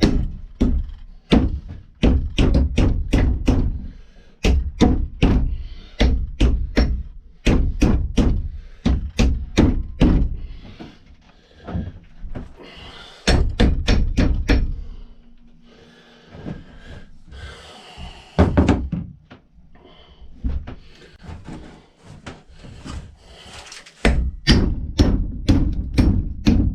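Hammer blows on a metal tool driving the old wooden handle out of an axe head's eye: sharp knocks in runs of about two or three a second, with a quieter stretch of scattered knocks in the middle and a fast run again near the end.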